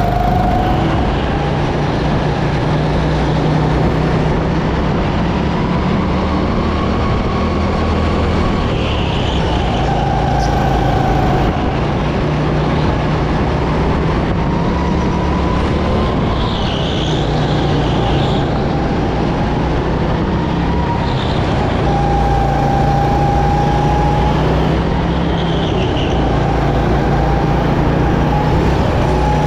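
Go-kart engine heard from onboard at racing speed, its pitch rising and falling every few seconds as the kart accelerates down straights and lifts for corners. Short high squeals come through a few times.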